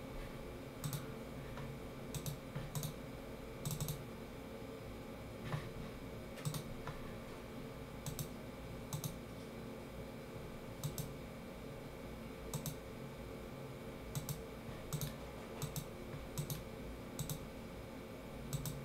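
Scattered, irregular clicks of a computer mouse, many in quick pairs, over a faint steady hum.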